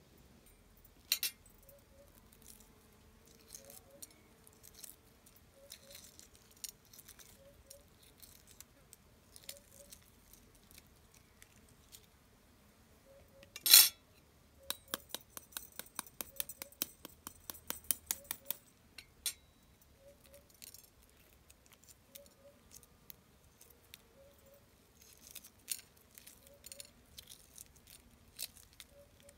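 Hard-boiled eggs being cracked and peeled by hand over a glass plate: one sharp crack of shell against the plate about halfway through, then a quick run of small crackling clicks as the shell breaks up, and lighter clicks and taps of shell pieces on the glass near the end.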